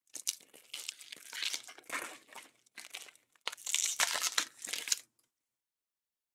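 Foil wrapper of a baseball trading-card pack being torn open and crinkled by hand. It crackles in several stretches with short breaks and stops about five seconds in.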